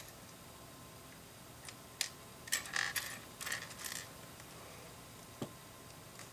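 Small plastic LEGO pieces clicking and clattering against each other and the tabletop as they are handled and sorted: a run of quick clicks in the middle, then one more click a little later.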